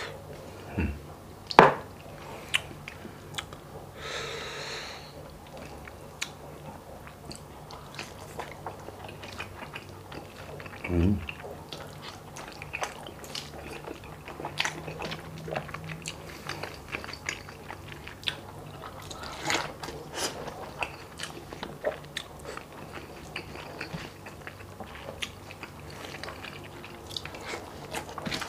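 Close-up mouth sounds of a man eating rice and stewed beef by hand: wet chewing and biting with many small smacks and clicks. A short low hum of the voice sounds about eleven seconds in, over a steady low hum.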